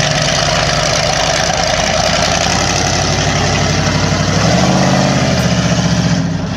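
Engine of the Bear Foot monster ride truck running steadily at idle, its pitch stepping up slightly about four and a half seconds in.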